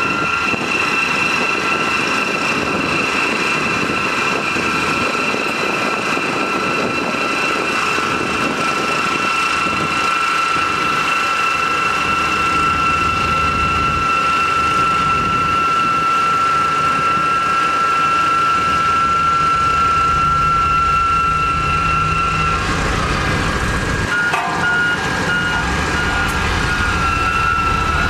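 Heavy road-construction machinery running, a steady engine noise with a constant high whine over it. About 23 seconds in the whine breaks off and returns interrupted and at a slightly different pitch, while the low rumble grows heavier.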